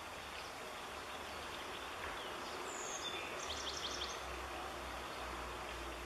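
Steady outdoor background noise with a low rumble, and a few thin, high songbird chirps around the middle, including a quick run of about five notes.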